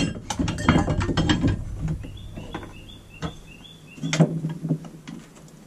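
Clatter and clicks of hard objects being handled and knocked together, dense in the first couple of seconds and again about four seconds in. In between comes a short run of faint, high, quick squeaks.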